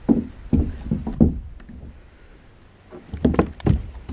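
Knocks and thumps on a small boat: about four in the first second, then a quicker run of them about three seconds in.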